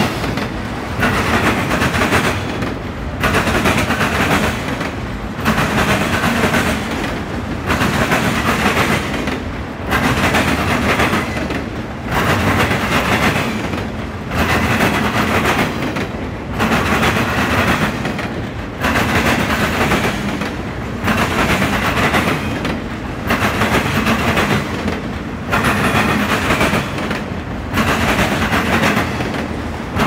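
CSX auto rack freight cars rolling past at close range: steel wheels rumbling and clattering on the rails, swelling in a regular surge about every two seconds.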